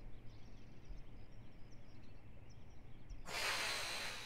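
A puff of breath blown onto a sore finger, heard about three seconds in and lasting about a second as a soft airy whoosh, over faint background hiss.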